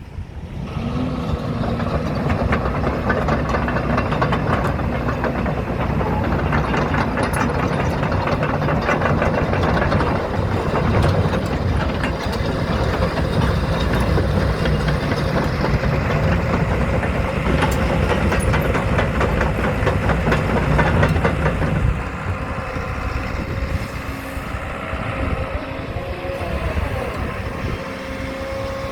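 JCB 220X tracked excavator's 4.8-litre four-cylinder ecoMax diesel running, with a steady hum and fine clatter. It eases to a lower, quieter run about 22 seconds in.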